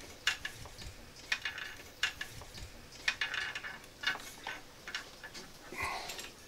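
Metal exhaust stub pipes and their clamps lightly clinking and scraping as they are twisted and pushed onto a motorcycle's header pipes: scattered faint metallic clicks and taps, with a short scrape near the end.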